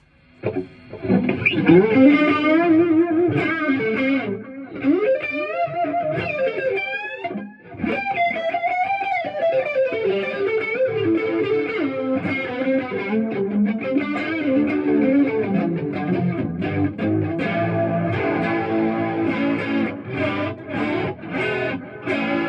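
Electric guitar, a Les Paul-style guitar with P90 pickups, played through a chorus pedal and a Marshall JCM900 valve amp with a light overdrive. It starts with a bent, wavering single-note lead line and moves to steadier held notes and chords after about ten seconds.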